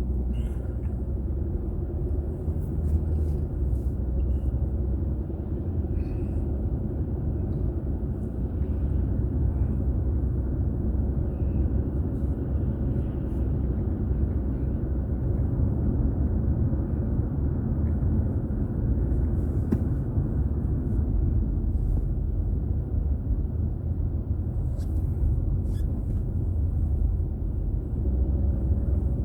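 Steady low rumble of a car driving along a road: tyre and engine noise heard from inside the car by a dashboard camera.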